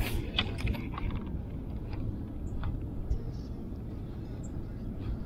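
A spinning rod being cast: a sharp swish right at the start and a few light clicks in the first second, then a steady low rumble with occasional faint ticks.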